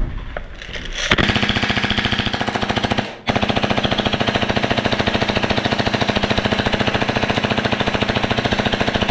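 Airsoft gun firing on full auto in long, rapid bursts, a fast even rattle of shots, starting about a second in with a brief break about three seconds in before a second long burst.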